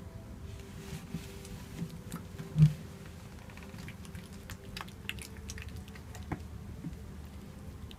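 A massage therapist's hands rubbing massage lotion between the palms, making a run of small wet, sticky clicks and squishes. A single dull thump, much louder than the rest, comes about two and a half seconds in.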